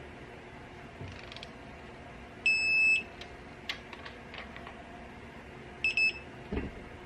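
Digital torque wrench, set to 20 ft-lb, beeping as the stud reaches the set torque: one long beep about two and a half seconds in, then two short beeps near the end. Light clicks come between the beeps, and a low knock follows just after the last ones.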